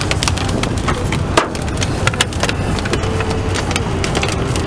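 Inside a moving car: steady road and engine rumble with irregular sharp taps, several a second, from scattered raindrops striking the windshield and roof.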